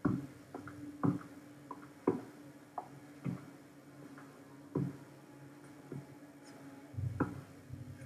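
About ten light knocks and clicks at irregular intervals over a faint low steady hum; the sharpest come near the start, around one and two seconds in, and about seven seconds in.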